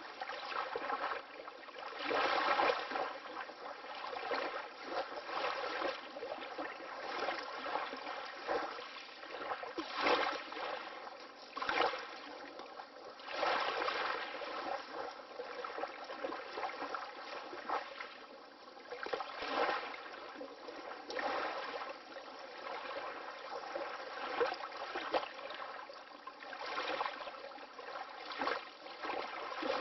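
Water lapping: small waves splashing and slapping in an irregular rhythm, with a louder surge every second or two.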